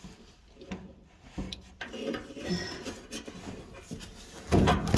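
Handling noise from working on dryer parts to get the belt off: scattered light clicks, taps and rubbing, with a louder clatter about four and a half seconds in.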